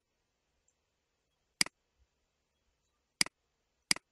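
Computer mouse left-button clicks: three sharp, separate clicks about one and a half, three and four seconds in.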